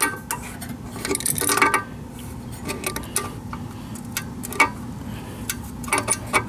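A wrench clinking against metal bolts and fittings as the turbo oil drain line's bolts are tightened: irregular sharp metallic clicks and clinks, a cluster about a second and a half in and a few more near the end.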